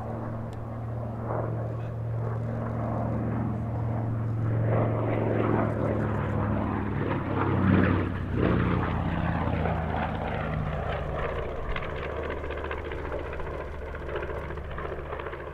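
B-25 Mitchell bomber's two radial piston engines running as it flies past. The sound builds, peaks about eight seconds in, and the pitch drops as it passes.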